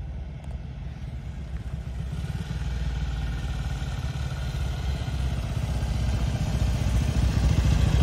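Several vintage motorcycle engines running with a steady firing beat, growing steadily louder as the bikes approach.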